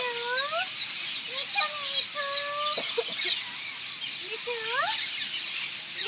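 A flock of green parakeets calling continuously, a dense chatter of short, harsh screeches. Lower, rising whistled calls recur over it every second or so.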